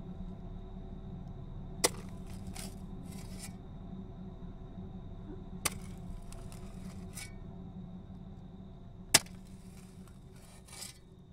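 A shovel stabbing into the ground three times, about three and a half seconds apart, each sharp strike followed by a short scraping rustle of dirt, the third strike the loudest. A steady low hum runs underneath.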